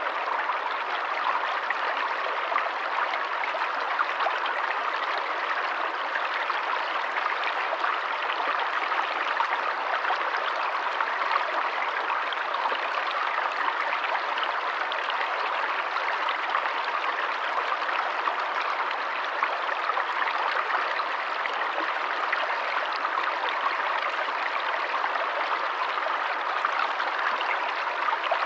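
Forest stream of running water flowing steadily, an even, unbroken rush with no pauses.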